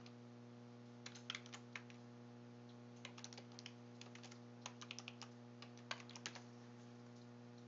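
Faint computer keyboard typing in four short bursts of keystrokes, over a steady low electrical hum.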